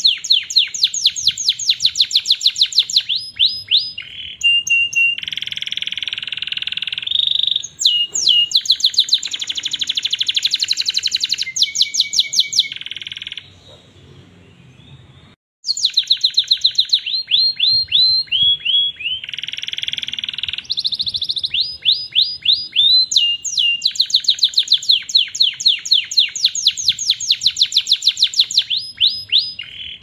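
Domestic canary singing a long song: runs of fast repeated trills and rolls, with buzzy passages between them, breaking off for about two seconds midway before starting again.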